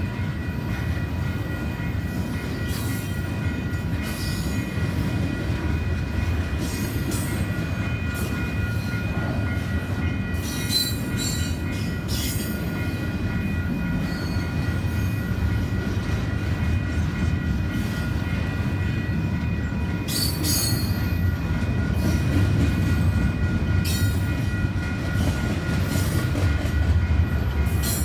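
Double-stack intermodal freight train's loaded well cars rolling past close by. There is a steady low rumble, with wheels clacking over rail joints every few seconds and a thin, steady high wheel squeal.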